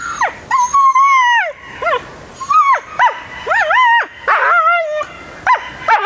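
Ten-month-old husky whining and yelping in a quick run of about ten high calls that bend up and down in pitch. One drawn-out whine comes about a second in and a lower, wavering call comes near the end.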